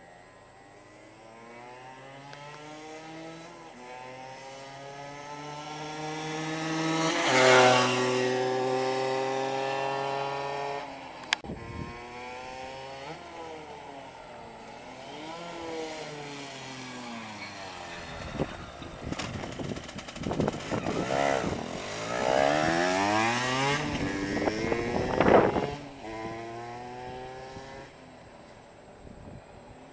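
Gilera RCR motorbike's 50 cc two-stroke engine revving. The pitch climbs to a loud peak about seven seconds in, then the revs rise and fall again and again. It peaks loudly once more near the end and drops away, with a single sharp click in the middle.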